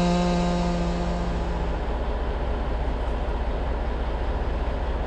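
Chainsaw coming off full throttle: its high steady engine note fades out over the first second or two, leaving the saw idling with a low, uneven beat.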